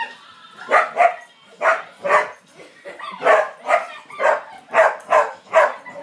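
A spaniel barking in quick, short barks, about ten in all, many coming in pairs.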